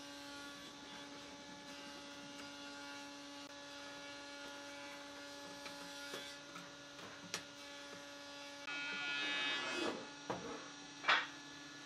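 Steady electrical hum with a few faint clicks, then a louder rustle and a couple of sharp knocks near the end.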